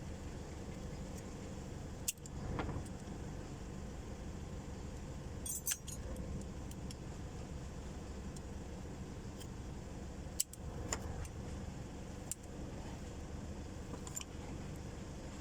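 Metal tools clinking and knocking against the forklift's diesel engine parts four or five times, sharp and ringing briefly, over a steady low mechanical hum.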